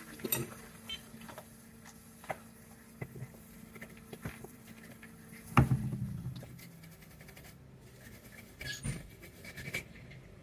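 Light taps, clicks and scrapes of small hand tools handled at a workbench, with one louder knock a little past halfway. A faint low hum cuts off at that knock.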